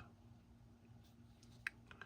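A single short click of the record button on a DJI Osmo Action remote controller, about one and a half seconds in, otherwise near silence.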